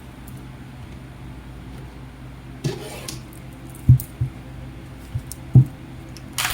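Tarot cards being handled on a table: a soft slide, then a few light taps and knocks as a card is drawn and laid down, over a steady low background drone.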